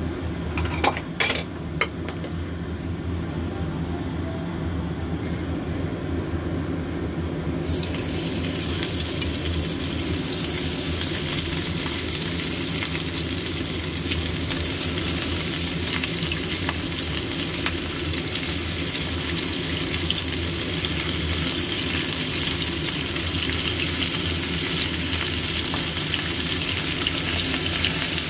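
Large peeled shrimp frying in hot oil in a small nonstick pan: a few sharp knocks about a second in, then about eight seconds in a sudden sizzle starts as the shrimp hit the oil and keeps going, slowly growing. A steady low hum runs underneath.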